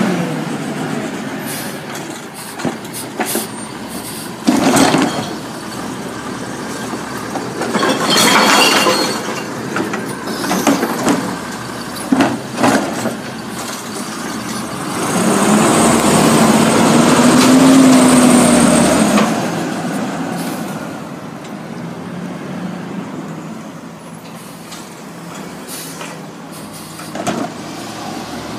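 Natural-gas Autocar Xpeditor garbage truck with a Heil Rapid Rail automated side arm running at the curb, with air-brake hisses and clanks and knocks. Midway a louder stretch of several seconds comes, with a tone that rises and falls as the engine revs to drive the hydraulic arm.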